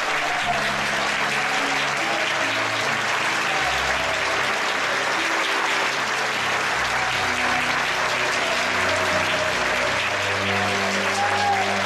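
Sustained applause in a concert hall from the audience and the orchestra players, even and unbroken, with slow music of long held notes underneath.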